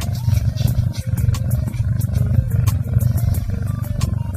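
Domestic kitten purring loudly and steadily right at the microphone, a deep motorboat purr. Scratchy clicks run through it as its fur and face rub against the camera.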